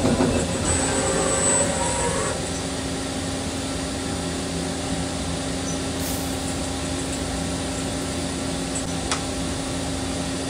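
CNC lathe running with a steady machine hum; the sound is busier for the first two seconds, then settles.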